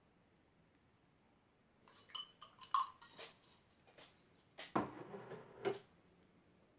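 A utensil clinking and scraping against a container as slime is mixed with borax activator. A few light clinks come about two to three seconds in, then a louder stretch of scraping and stirring strokes around five seconds.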